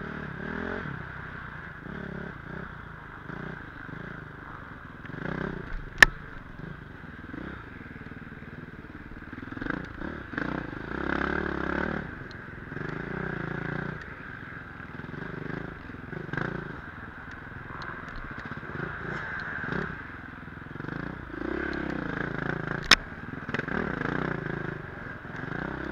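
KTM dirt bike engine heard from on the bike as it is ridden, revving up and down with the throttle. Two sharp knocks stand out, about six seconds in and near the end.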